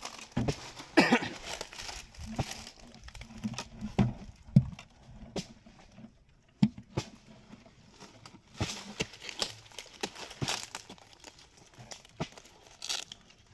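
Dry fibres and bark of a felled palm trunk being torn and pulled apart by hand: irregular crackling and tearing with scattered sharp snaps and knocks.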